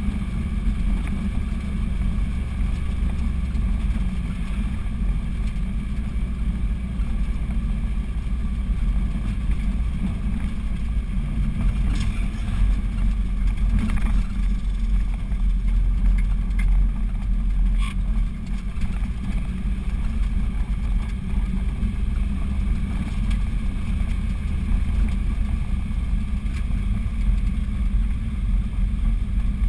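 A car's engine running steadily with road rumble, heard from inside the cabin while driving. A few short knocks come around the middle.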